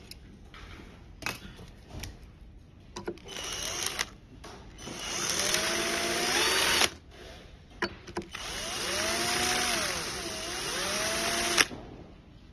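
Power drill boring holes into the plastic battery holder of an electric unicycle. After a few clicks and short trigger bursts it runs twice, for about two and about three seconds, its motor pitch rising and falling as the speed and load change.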